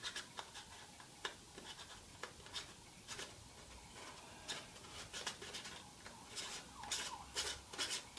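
Faint scattered clicks and rubbing from hands handling a DSLR and its zoom lens, turning the lens rings to focus with a close-up filter screwed on. The clicks come closer together and grow louder near the end, with a brief falling squeak.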